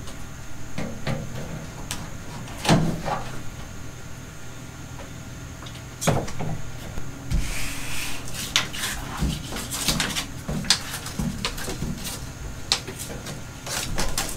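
Hands laying self-adhesive foam gasket tape along a pickup's bed rail under a camper shell: irregular knocks and taps against the rail, with a brief rustling rasp about seven seconds in.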